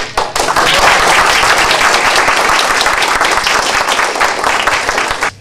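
Audience applauding: dense, steady clapping that starts suddenly and cuts off suddenly near the end.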